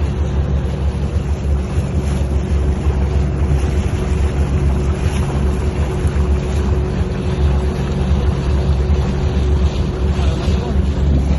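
Toyota Land Cruiser 75's engine running steadily as the truck wades through floodwater, a constant low drone, with wind buffeting the microphone.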